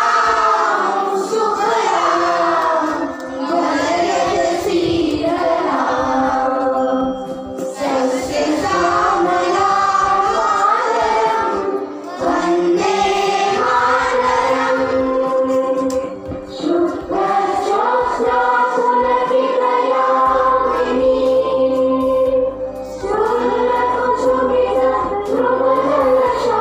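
A group of children singing a song together, in sung lines with held notes and short breaks between the lines.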